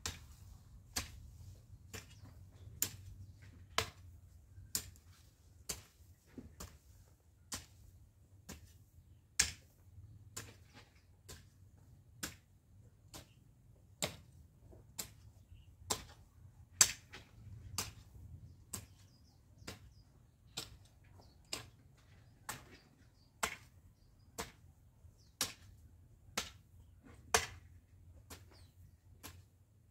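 A garden hoe chopping into dry soil in short, even strokes, about two sharp strikes a second, some louder than others.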